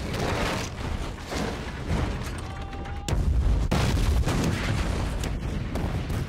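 Film battle sound effects: a series of booms from fireballs exploding against stone walls, the heaviest starting suddenly about three seconds in, with music underneath.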